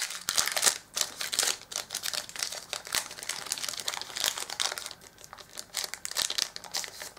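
Foil Yu-Gi-Oh booster pack wrapper crinkling and crackling irregularly in the hands as it is torn open.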